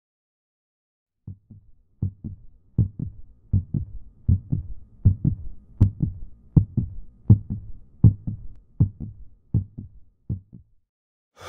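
Heartbeat sound effect: a steady lub-dub double thump, about 80 beats a minute, that begins a little over a second in and stops near the end.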